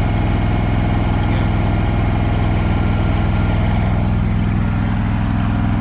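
Engine of a Hobart Champion Elite engine-driven welder running at a steady speed.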